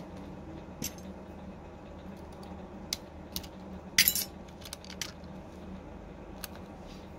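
Sharp little clicks and clinks of plastic and metal as the wireless-charging coil cover is pried off a Samsung Galaxy S20's frame by hand, with a short burst of louder clicks about four seconds in as it comes loose.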